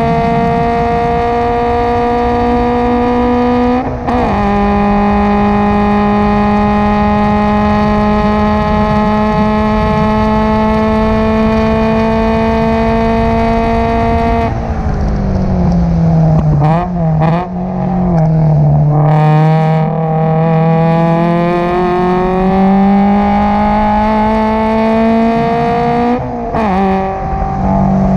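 Subaru BRZ race car's 2.0-litre flat-four engine, with an aftermarket header and Invidia single-exit catback, heard from inside the cabin under full throttle. It upshifts about four seconds in and makes a long, slowly rising pull in top gear. About halfway the pitch falls as the driver lifts and brakes, with quick up-and-down blips through a downshift, then climbs again under acceleration, with another shift near the end.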